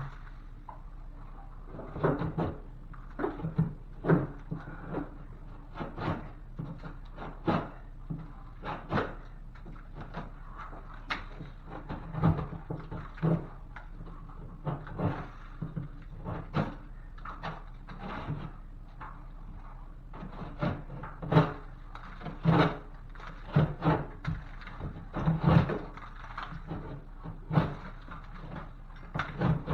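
Irregular knocks, clunks and scrapes of hand work with tools and drywall, in uneven clusters, over a faint steady low hum.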